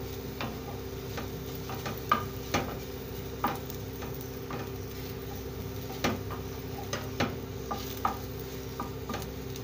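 Wooden spatula stirring and scraping raisins around an aluminium kadai as they roast over low heat, with irregular clicks and scrapes against the pan over a faint steady hum and light sizzle.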